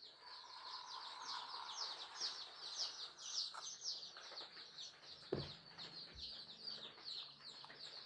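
A brood of young domestic chicks peeping without pause: a dense stream of short, high, falling chirps, several a second. A single soft knock sounds about five seconds in.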